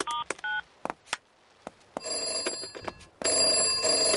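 Push-button telephone dialing, its last three keypad beeps, then a red rotary telephone's bell ringing twice as the call goes through.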